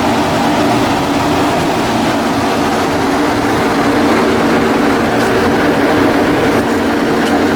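Heavy machinery running steadily, a constant drone with a low hum that does not change.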